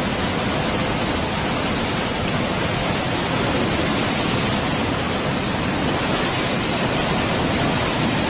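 Muddy floodwater rushing steadily down a river swollen by a flash flood.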